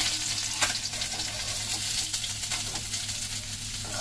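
Fish sizzling in hot mustard oil in a kadai, a steady hiss, with a couple of short clicks of a metal spatula against the pan as the fried fish are lifted out.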